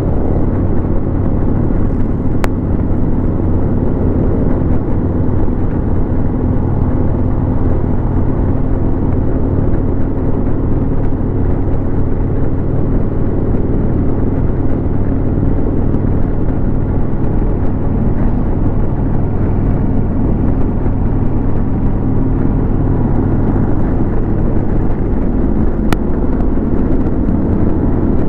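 Harley-Davidson Road King's V-twin engine running steadily at highway cruising speed, heard from the saddle together with road noise.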